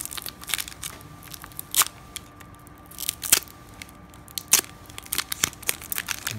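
Foil wrapper of a 1998 Bowman Chrome baseball card pack crinkling and tearing as it is opened, a run of sharp crackles. There are three louder snaps at about two, three and a half, and four and a half seconds in.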